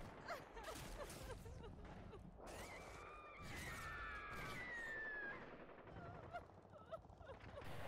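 Faint outdoor ambience of short bird chirps, with a long wavering call a few seconds in.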